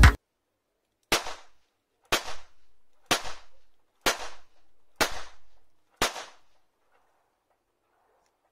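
Röhm RG69N blank revolver firing six 9 mm R Knall blank cartridges, about one shot a second. Each shot is a sharp bang followed by a short fading echo.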